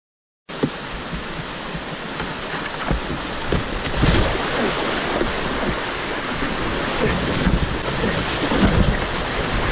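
Rushing whitewater of a flooded river rapid heard from a kayak, a dense steady roar with irregular splashes and thuds close to the microphone. It cuts in suddenly about half a second in.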